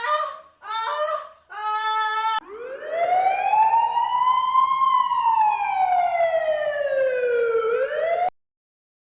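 A dog yips a few times, then gives one long howl that rises, slowly falls and rises again in pitch, cutting off suddenly.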